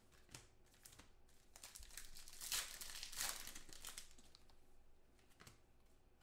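Foil wrapper of a Panini Totally Certified football card pack crinkling and tearing as it is ripped open and the cards slid out. The crackle is loudest in the middle, with a few light clicks either side.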